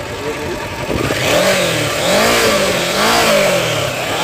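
Kawasaki Versys 650's parallel-twin engine revved in about three blips of the throttle, the pitch rising and falling each time.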